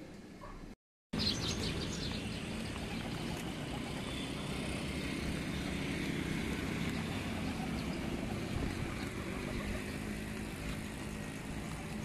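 Steady outdoor background noise with a low traffic-like hum and a few faint bird chirps, after the sound cuts out briefly just under a second in.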